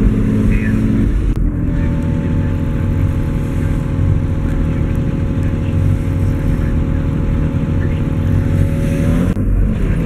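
Older Nissan car's engine idling steadily just after a cold start, heard from inside the cabin.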